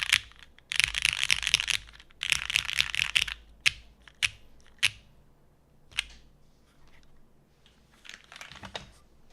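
Custom mechanical keyboard with lubed Cherry MX Black linear switches, an aluminum plate and GMK keycaps being typed on. Three quick bursts of fast keystrokes are followed by a few single key presses spaced about half a second to a second apart, then a handful of fainter clicks near the end.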